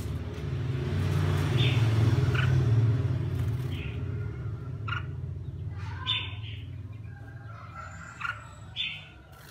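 A vehicle engine rumbles, growing louder over the first few seconds and then fading away. Short bird chirps come through at intervals, the clearest in the second half.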